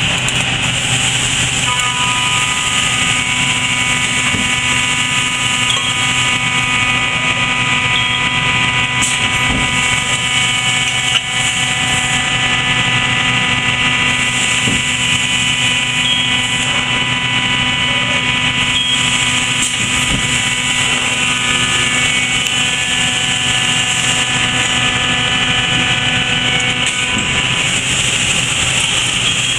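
Amada press brake running steadily: a constant machine hum with several steady, high whining tones over it.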